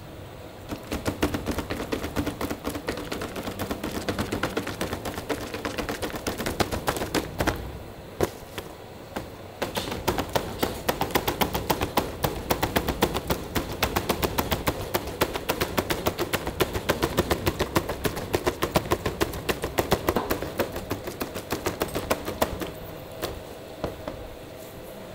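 Cleaver chopping roast meat on a chopping block, in fast strings of sharp strikes. There is a short lull about 8 seconds in, and the chopping stops near the end.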